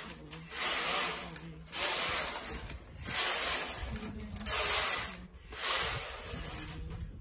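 Domestic knitting machine carriage pushed back and forth along the needle bed, knitting row after row of a hem: a rasping swish with each pass, about five passes just over a second apart.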